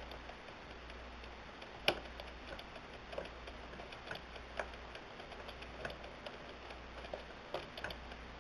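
Hand-cranked automaton's wooden gears, cams and levers turning, giving irregular soft clicks and knocks, with one sharper knock about two seconds in.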